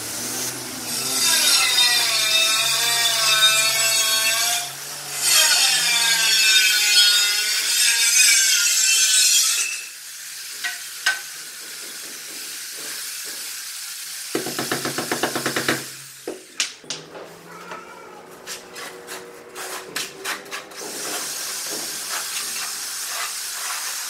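Notched steel trowel scraping and combing tile mortar across a concrete floor, with two long loud scraping stretches that have a wavering squeal in them, then quieter scrapes. About two-thirds of the way through comes a brief rattling buzz, followed by a few sharp taps.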